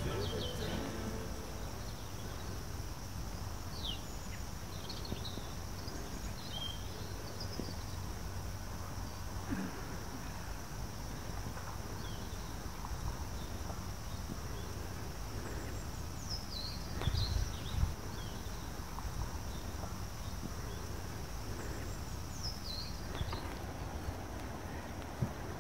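Outdoor ambience: a steady low rumble and a faint steady high hiss, with a few short, high, falling bird chirps scattered through, and a couple of low bumps about two-thirds of the way in.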